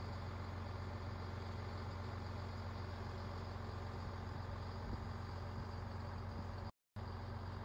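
A steady low hum over a constant background hiss, broken by a brief total dropout about seven seconds in.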